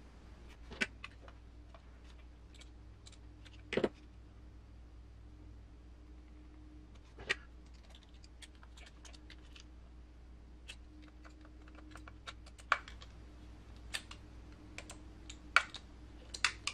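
Scattered light clicks and taps of small plastic and metal parts being handled on an RC crawler's transmission and motor while the gear mesh is checked. A few sharper knocks stand out: about a second in, near four seconds, near seven seconds, and twice in the last few seconds.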